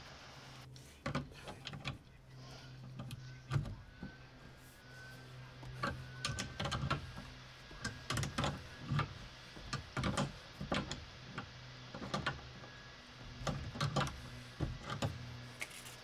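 Adjustable wrench tightening a shut-off valve onto a water-supply stub-out, with short irregular metal clicks and knocks as the tool grips, turns and is repositioned, over a faint steady low hum.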